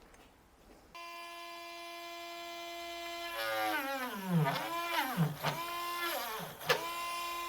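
Cordless Parkside rotary tool switched on about a second in, whining steadily at speed. From about three seconds in, its pitch drops sharply and recovers several times as the bit bites into the pump head's hole. The tool bogs down under load, short of power.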